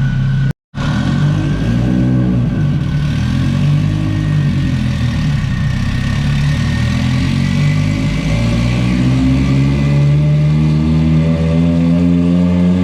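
Turbocharged Subaru flat-four of a 2011 STI running on a chassis dyno, its revs wavering, then climbing slowly over the last few seconds as a pull begins. The sound cuts out for a split second about half a second in.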